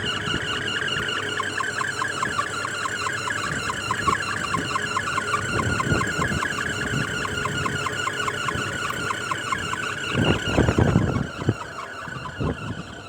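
Package AC unit's indoor blower belt chirping in a rapid, even rhythm, several chirps a second, a noise traced to the belt needing grease. The chirping stops near the end, followed by a few knocks.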